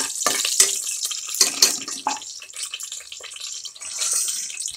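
Whole spices sizzling in hot ghee and oil in a pressure cooker, a steady high hiss, with a metal ladle stirring, clicking and scraping against the pot.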